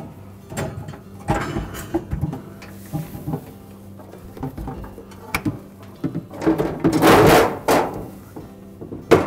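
Knocks, rattles and scraping from the freezer's ice-maker auger motor assembly as its two top hooks are worked into the slots in the freezer's back wall. There is a louder scraping rub about seven seconds in, and a sharp click just before the end.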